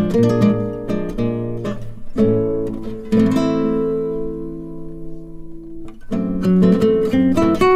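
Background music of acoustic guitar picking. A chord is struck about three seconds in and left to ring out and fade, then the picking starts up again near the end.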